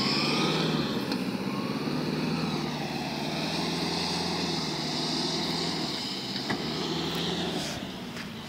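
Modified Mahindra Thar 4x4 jeep's engine running as it drives off across loose sand, growing fainter as it moves away; the engine note drops away near the end.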